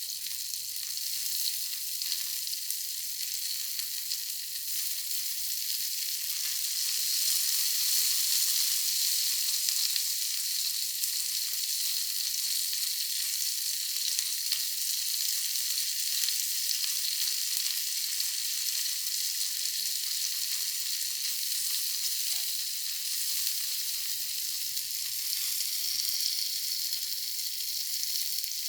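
Shrimp frying in hot oil in a pan, a steady sizzle that grows a little louder several seconds in.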